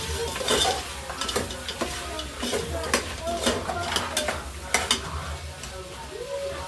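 Curry mutton sizzling as it browns in hot oil in a pot before any water goes in, stirred with a spoon that knocks and scrapes against the pot in short sharp clicks.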